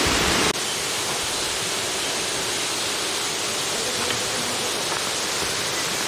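Water rushing over rocks in a cascading mountain stream, a steady even hiss. About half a second in, a louder, rumbling stretch cuts off suddenly, and the quieter rush runs on steadily.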